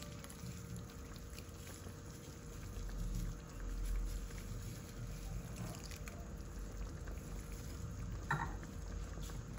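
Fresh coconut milk poured in a thin stream into a pan of liquid vegetable curry, a faint trickle into the broth that tails off before the end.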